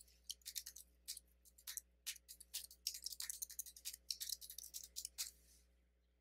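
Faint computer keyboard typing: a quick, irregular run of key clicks as a password is entered, stopping about five seconds in.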